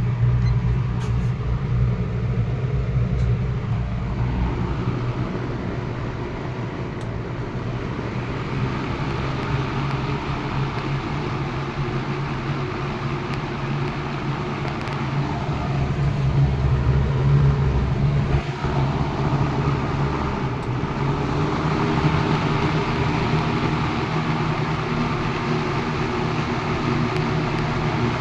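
A 1976 Lakewood S14 14-inch box fan running steadily: a motor hum under the rush of air from the blades, the air noise growing stronger about eight seconds in. It runs smoothly, in good working order after cleaning.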